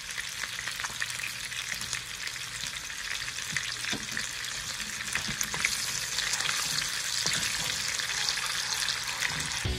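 A glaze of melted butter, honey, soy sauce and lemon juice sizzles and crackles as it simmers in a nonstick frying pan. The sizzling grows a little louder after about five seconds, and a wooden spoon stirs the pan near the end.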